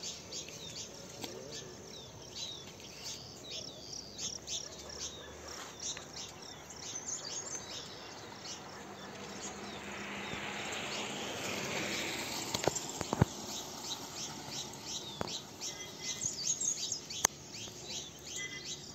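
Birds chirping in forest trees, many short high calls repeating throughout. Around the middle, a rushing noise swells and fades, followed by a few sharp clicks.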